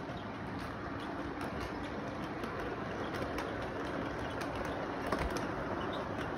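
LEGO toy train running along its plastic track: a steady motor hum and wheel noise with scattered light clicks, growing a little louder as the train comes past.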